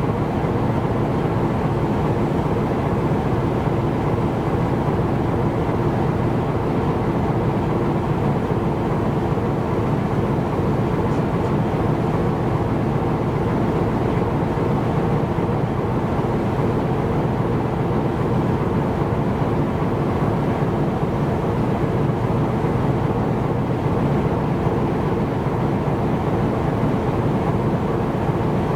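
Steady, unbroken drone of a ship's diesel engine, an even hum of several steady tones over a rushing noise.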